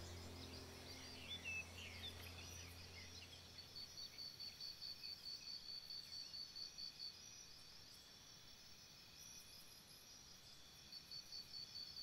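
Faint, high-pitched insect chirping in rapid, steady pulses, with a few short bird chirps about a second in. A low background music drone fades out over the first few seconds.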